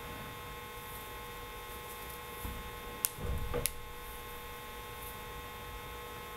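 Steady electrical hum made of several constant tones, with two sharp clicks about three seconds in, half a second apart, and a brief low rumble between them.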